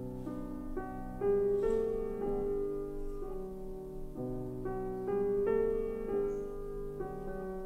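Slow background piano music, one note or chord following another.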